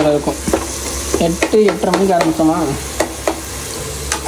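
Biryani masala sizzling and frying in a pan while a spatula stirs it, clicking and scraping against the pan several times. A voice is heard briefly in the middle.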